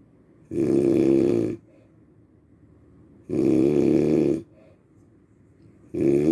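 Loud snoring: three snores, each about a second long, coming at a steady rhythm about every two and a half to three seconds, with quiet between them. The last snore starts near the end.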